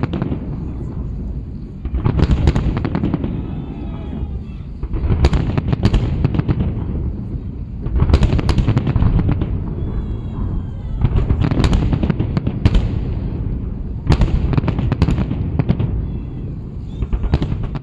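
A fireworks salute: a salvo of shells bursts about every three seconds, six in all. Each salvo is a cluster of sharp bangs over a deep rolling rumble that dies down before the next.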